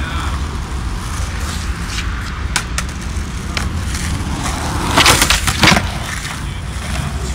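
Skateboard wheels rolling over concrete, a steady low rumble, with two sharp clacks of a board about five seconds in.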